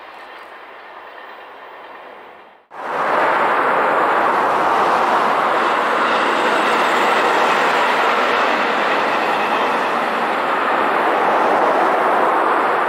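Freight train running in the distance, then after a sudden cut about three seconds in, a much louder steady rushing rumble of a JR 205 series electric train running along the line.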